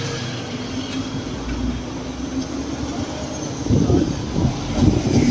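Steady low rumble of a passing or running vehicle with a faint steady hum, growing louder and rougher about four seconds in.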